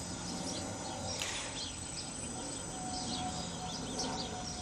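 Birds chirping in many short calls over a faint steady hum from a multirotor drone hovering in the distance, with a low outdoor rumble underneath.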